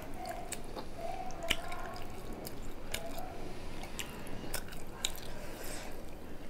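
Close-miked wet chewing of fish and rice, with irregular smacking and clicking mouth noises.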